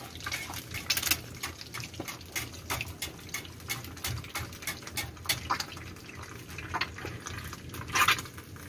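Food frying in a pan of hot oil, with continuous sizzling and irregular crackling pops, and a metal spatula scraping and tapping the pan now and then.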